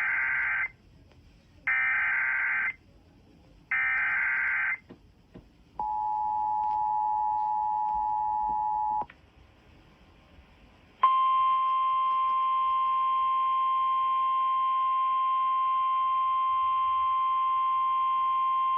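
Emergency Alert System broadcast: three one-second warbling SAME digital header bursts, then the two-tone EAS attention signal for about 3 seconds. After a short pause comes a steady single tone of about 1050 Hz, the weather radio warning alarm tone, which announces a severe thunderstorm warning.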